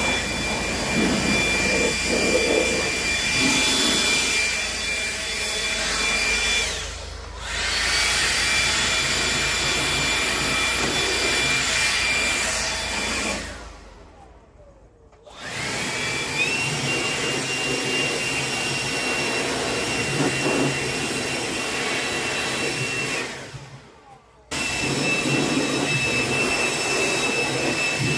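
A small motor running with a steady high-pitched whine over a loud rushing noise, in several stretches. It drops away twice. After the second gap the whine rises in pitch as the motor spins back up.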